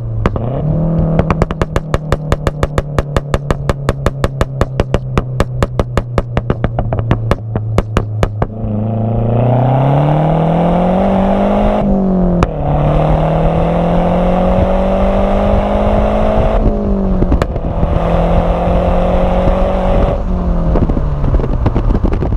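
2009 Mazdaspeed 3's turbocharged 2.3-litre four-cylinder exhaust popping and crackling rapidly, about five cracks a second, from a tune that adds pops and crackles. About eight seconds in, the car accelerates: the engine note climbs, drops back at two gear changes, and falls away near the end.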